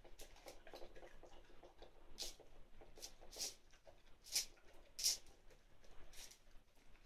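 Dog eating raw minced meat from a plate: irregular wet chewing and smacking, with a few louder sharp smacks about two, four and five seconds in.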